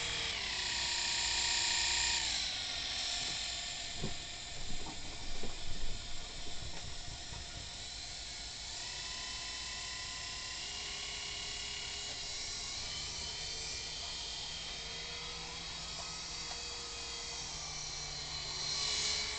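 Small electric motors and rotors of a toy remote-control helicopter whining. The pitch drops about two seconds in, a few knocks and handling clatter follow, then a steady whine that swells near the end.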